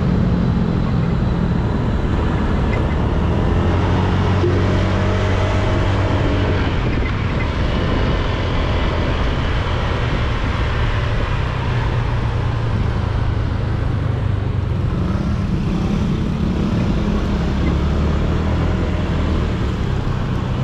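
Honda Click 125i scooter's single-cylinder engine running under way, its hum rising and falling with the throttle, over tyre and wind noise on a wet road, with other traffic around.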